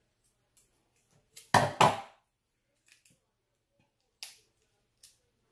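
Scissors snipping into a plastic candy packet: two loud snips close together about a second and a half in, then a few faint crinkles as the packet is handled.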